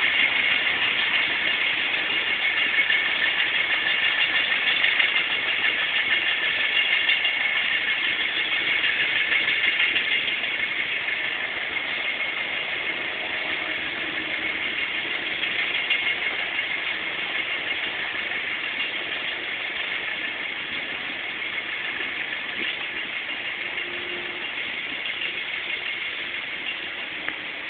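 Steady street noise heard while moving along a city street: a high whirring hiss with little low rumble, slowly getting a little quieter.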